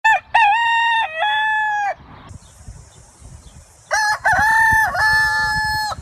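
Rooster crowing twice: two cock-a-doodle-doos, each about two seconds long, the second starting about four seconds in.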